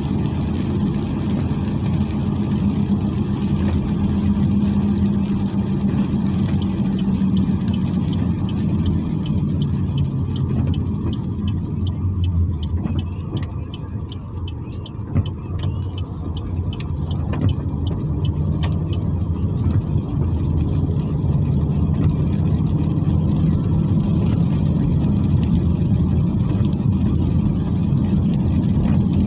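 Car engine and tyre noise on a wet road, heard from inside the cabin: a steady low hum that drops in pitch and goes quieter about halfway through as the car slows, then picks up again.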